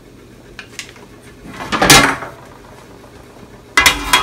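Cooking utensils against a metal wok: a wooden spoon stirring and scraping, with one loud scrape about two seconds in, then a perforated metal cover clattering down onto the wok near the end.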